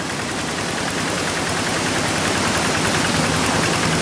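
Kubota RD85 single-cylinder diesel engine of a hand tractor running with rapid, even firing beats, fading in and growing louder over a steady hiss.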